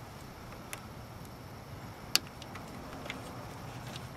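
A few small, sharp clicks from hands working a thin wire with a small metal pick, one much louder about two seconds in, over a faint low hum.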